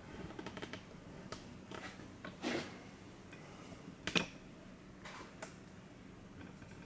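Quiet room with a few faint clicks and taps, and one sharper click about four seconds in.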